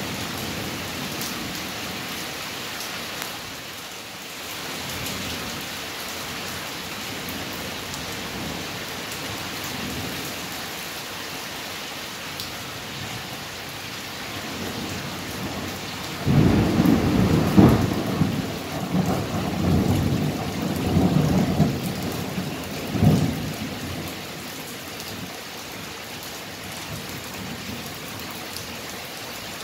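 Steady rain falling through a thunderstorm. About halfway through, a peal of thunder breaks in suddenly and rolls on in several loud swells for about seven seconds, with a last sharp clap before it fades back into the rain.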